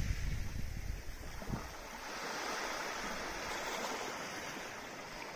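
Small waves washing up onto a sandy beach and running back, a hiss of surf. It is louder with low rumbling for the first second and a half, then settles to a softer, steady wash.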